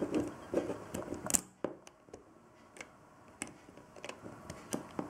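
Small plastic LEGO bricks being handled and pressed onto a model: a series of separate sharp clicks and ticks, the loudest just over a second in.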